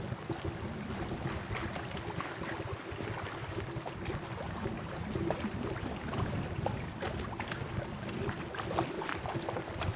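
Outdoor lakeshore ambience: wind rumbling on the microphone, with scattered light ticks and a faint steady hum underneath.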